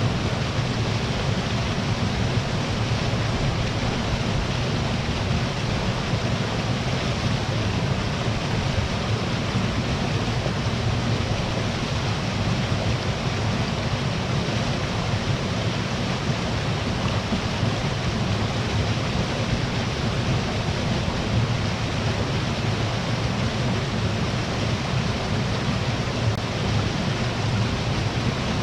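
Small waterfall on a mountain stream, a steady rushing of falling water with a deep low rumble and no other sound standing out.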